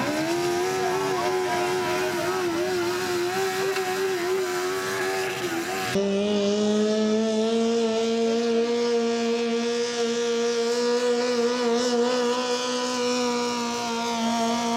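Garden-modified pulling tractor engine running at high, steady revs under full load while it drags the weight sled. About six seconds in, the sound cuts to a second pulling tractor's engine, also held at high revs, its pitch creeping slightly upward and then holding through the pull.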